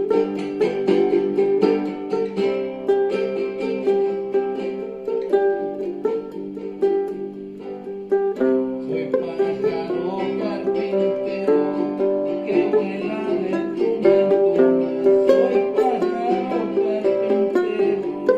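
A plucked string instrument playing a tune in quick picked notes.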